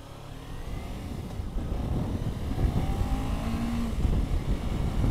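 Motorcycle engine pulling away and accelerating, with wind noise on the microphone growing louder as speed builds.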